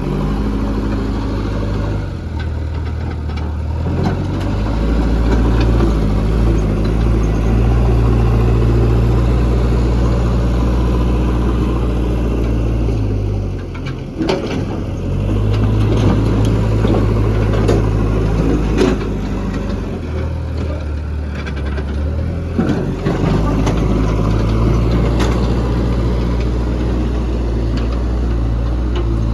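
JCB 3DX backhoe loader's diesel engine running, its note rising and dropping several times as the machine works, with a few sharp knocks.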